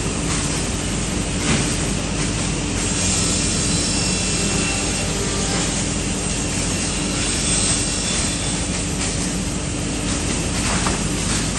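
Multi-blade wood block cutting saw running steadily as blocks feed through its blades: a continuous machine drone with a low motor hum and a few brief knocks.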